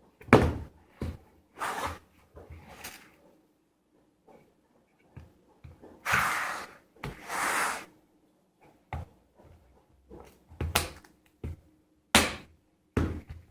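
A cardboard shipping box being cut open with a utility knife: scraping, tearing strokes through tape and cardboard, the longest two around the middle, with knocks as the box is handled, one sharp knock near the start.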